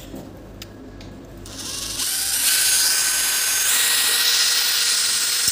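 Cordless drill boring a hole through an aluminium transom rod. It starts about a second and a half in, speeds up, and then runs steadily under load.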